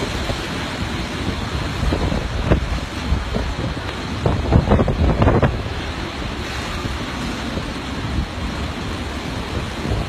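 Typhoon wind blowing hard over rough harbour water, buffeting the microphone in heavy gusts about two seconds in and again around the middle.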